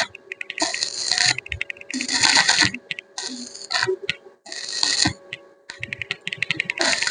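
Stick (arc) welding in short runs: the arc crackles and spits in bursts of under a second, stopping and restarting about every second, over a faint steady hum from the welding machine.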